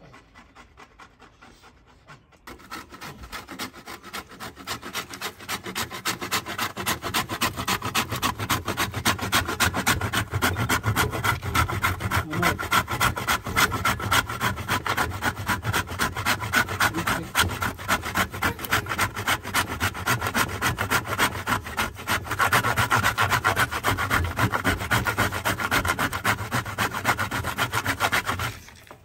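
A piece of coconut grated on a stainless steel box grater, in quick, steady rasping strokes. It starts about two seconds in and stops just before the end.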